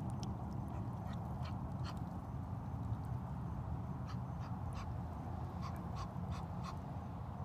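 Ducks quacking in short runs of three or four calls, several runs in a row, over a steady low rumble.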